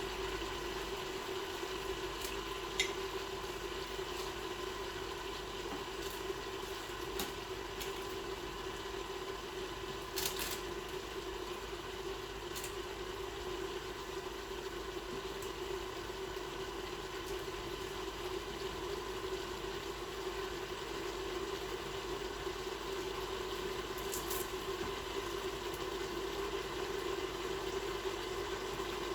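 Stir-fry cooking: food sizzling in a pan over a steady hum, with a few sharp clicks about 3, 10 and 24 seconds in.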